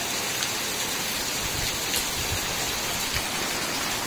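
Steady downpour of rain splashing on the ground and roofs.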